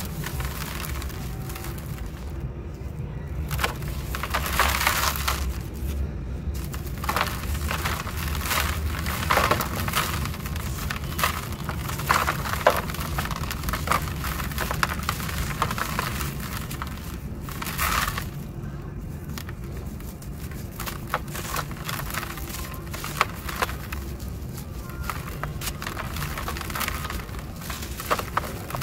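Soft balls of dry sand-and-cement mix being crushed by hand, a dense crackle of crumbling grit with spells of sand pouring and hissing back into a plastic bucket. A low steady rumble runs underneath.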